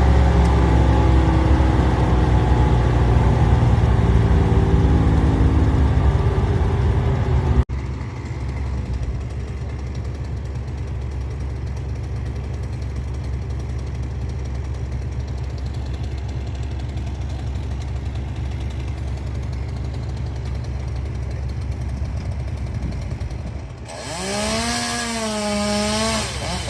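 Loud machinery noise that cuts off abruptly about eight seconds in, then a steady, quieter engine drone. Near the end, a chainsaw engine revs up and down several times.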